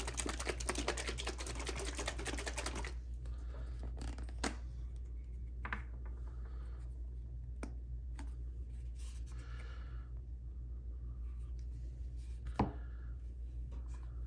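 A small bottle of Loctite 222 threadlocker being shaken briskly, a fast run of clicks and sloshes that stops abruptly about three seconds in. After that come faint small handling clicks, with one sharper tap about twelve seconds in.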